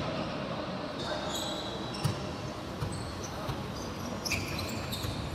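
Basketball game sounds in an echoing sports hall: sneakers squeaking on the hardwood court and the ball bouncing, over faint voices from the players and bench.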